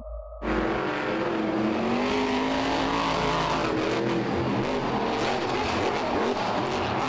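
A short electronic tone cuts off about half a second in. Then the Grinder monster truck's supercharged engine runs at high revs, its pitch rising and falling. In the second half come several sharp knocks and clatters as the truck lands hard and rolls over, in the crash that tore its front axle out.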